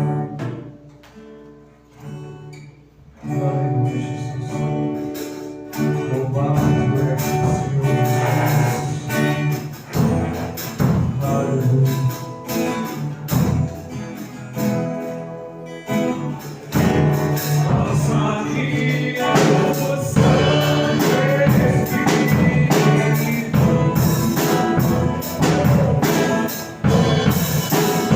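Live church praise band playing a worship song with singing. It opens with a few sparse notes, and the full band comes in about three seconds in.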